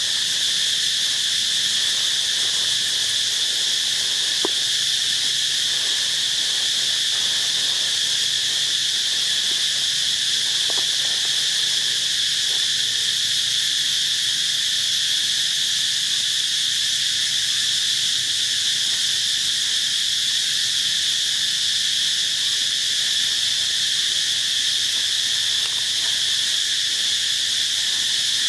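A steady insect chorus: a continuous high-pitched buzzing drone that does not let up.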